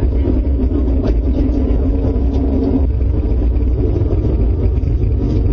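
A loud, steady, deep rumble from the sky, of unknown cause: a tornado is feared.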